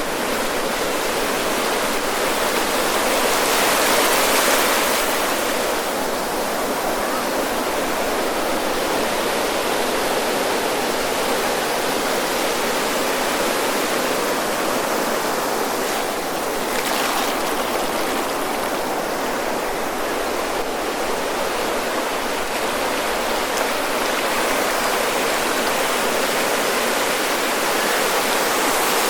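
Ocean surf: waves breaking and washing up the beach in a continuous rush, swelling louder about four seconds in and again around seventeen seconds.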